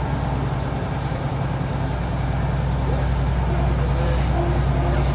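Cabin of a moving Class 156 diesel multiple unit: the diesel engine's steady low drone mixed with wheel-on-rail running noise, getting a little louder over the last couple of seconds.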